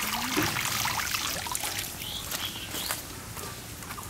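Water dripping and splashing off boiled noodles as a large perforated skimmer lifts them out of a steel pan of water and tips them into a plastic colander, with scattered small splashes and clicks.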